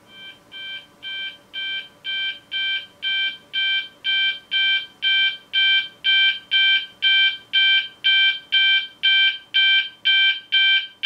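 Gent S3IP Mk2 voice sounder beacon sounding its Signal 1 fast intermittent tone: about two beeps a second, each a steady multi-pitched beep. The beeps grow louder over the first five seconds or so as the sounder soft-starts, then hold at full volume.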